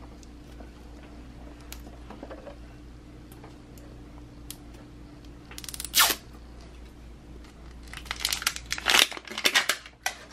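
Plastic wrapping of LOL Surprise balls crinkling and tearing as the balls are handled and peeled open, with one sharp crackle about six seconds in and a run of crinkles near the end.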